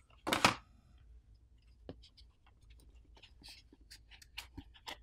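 A short rustle near the start, then faint, scattered clicks and taps of hands handling a small thermal camera attachment and its box, lifting the camera from its insert.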